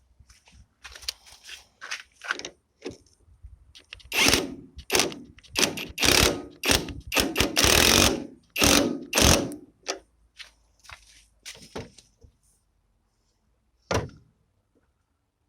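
A series of irregular knocks and clatters of hard objects, densest in the middle and thinning out, with one lone knock near the end.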